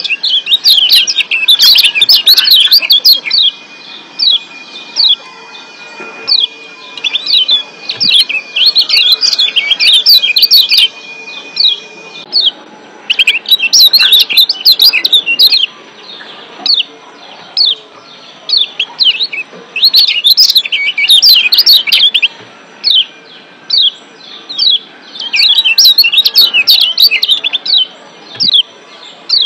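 Lombok yellow white-eyes (kecial kuning) giving rapid, high, sharp 'ciak' chirps in dense bursts with short pauses between them. These are wild, excited calls played as a lure to rouse captive kecial into active singing.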